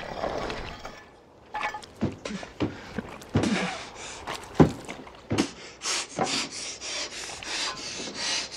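A man panting and grunting with effort while handling a porcelain toilet tank lid, with a few dull clunks in the first half. Near the end come quick, hard breaths, about three a second.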